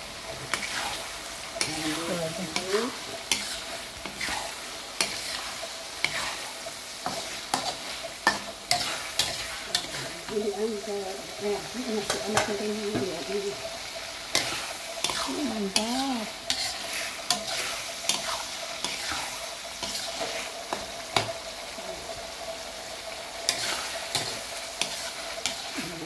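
Shrimp, chicken liver and gizzard frying in red chili sambal in a pan while being stirred: a steady sizzle with frequent short clicks and scrapes of the stirring utensil against the pan.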